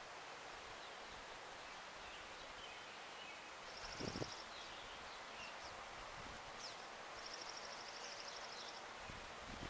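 Outdoor ambience with a small bird in the background giving a rapid, high trill twice, once short at about four seconds and once longer, about a second and a half, near the end, with a few faint chirps between. A brief low rumble about four seconds in is the loudest sound.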